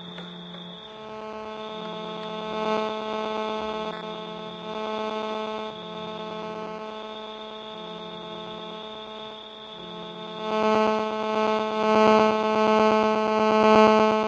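Electronic buzz from a mobile phone's radio signal, picked up by a phone-signal detector's circuit: a steady hum with a fine pulsing chatter. A high beep-like tone switches on and off through it. The buzz grows louder about ten seconds in.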